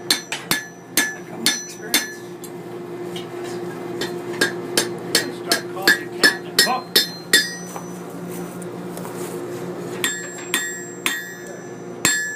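Blacksmith's hammer striking iron on an anvil, the anvil ringing after each blow. The strikes come in three runs of quick blows, about two to three a second, with short pauses between, over a steady low hum.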